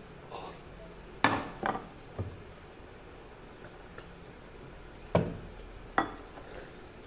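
Stainless steel tumblers and tableware knocking and clinking against the table and steel serving tray: several sharp knocks with a short ring, two in quick succession a little over a second in, another soon after, then two more near the end.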